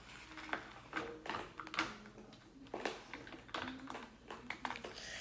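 A pen tip scratching and tapping on notebook paper while colouring, in short, irregular, faint strokes.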